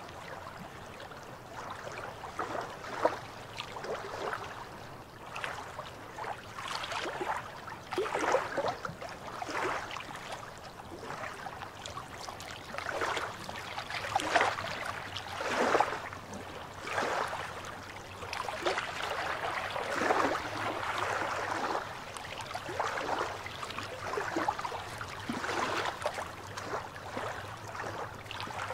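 Small waves lapping and splashing against rocks at the water's edge, in irregular splashes every second or two, over a faint steady low hum.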